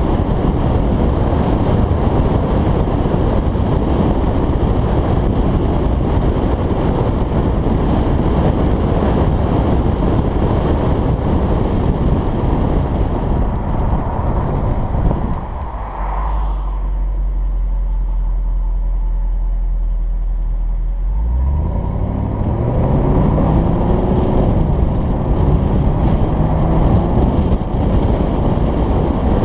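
2011 Jaguar XKR's supercharged 5.0 V8 and exhaust with fuse 19 pulled, which holds the active exhaust valves open. At first it is under heavy wind and road noise while driving. About halfway through the car sits idling with a steady low note, then pulls away, the engine note rising through several gear changes.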